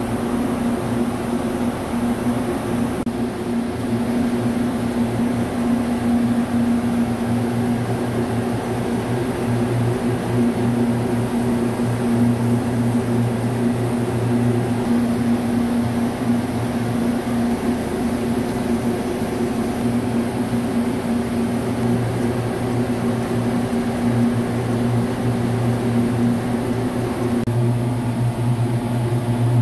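Large CNC vertical turning lathe running steadily while machining the inside diameter of a steel tunnel boring machine part: a steady machine hum with a low drone. The hum changes slightly near the end.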